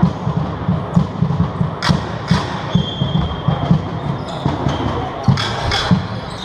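Echoing sports-hall sound at a basketball game: a steady run of low thuds with a few sharp knocks, and a short high whistle tone about three seconds in.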